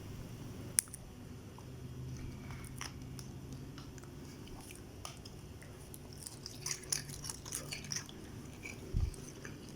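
Close-miked chewing of food, with scattered small clicks that grow busier after about six seconds and a sharp tap about a second in, over a steady low hum.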